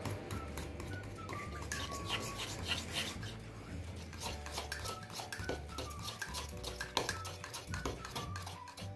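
A spoon stirring thick chocolate cake batter in a ceramic mug, clinking and scraping against the mug's sides in quick, irregular clicks.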